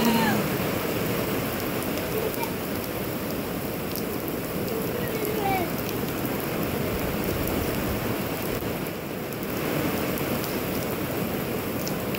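Heavy rain falling steadily in a downpour on pavement, grass and street, a dense even hiss throughout.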